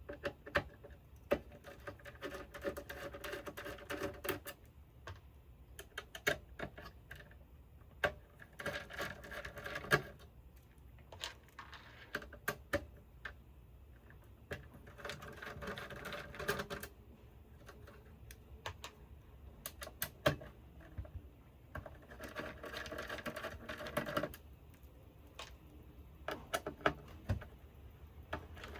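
Small electric screwdriver backing screws out of an oscilloscope's metal chassis: about four short whirring runs of roughly two seconds each, with sharp clicks and taps of the bit, screws and tool between them.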